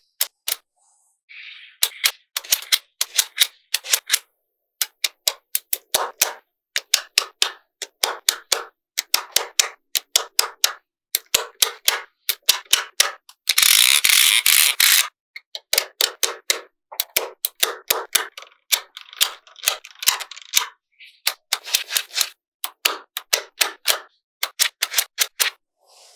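Small magnetic balls snapping together in quick runs of sharp clicks. Just past halfway comes a louder continuous rattle of many balls, lasting about a second and a half.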